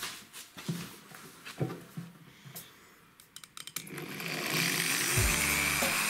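A few scattered knocks and clicks, then about four seconds in a corded electric drill starts and runs steadily, its long thin bit boring a hole through the plastic flange of a washing-machine tub.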